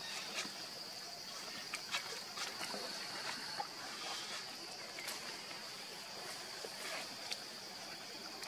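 Outdoor ambience: a steady high-pitched hum throughout, with scattered light crackles and ticks of dry leaves and twigs as a baby macaque moves over the leaf-littered ground.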